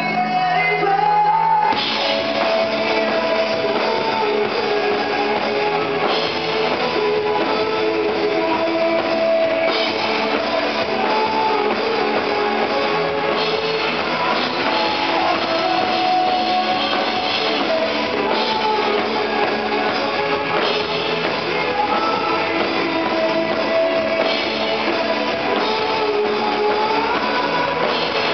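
Live rock band playing, with a male singer over electric guitar, drums and keyboards. The opening is sparse, and the full band comes in about two seconds in.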